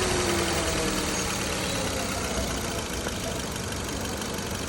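Kia Cerato's four-cylinder petrol engine just started and settling to idle, its revs easing down from the start-up flare over the first second. It runs smoothly with the misfire gone after a faulty fuel injector was replaced.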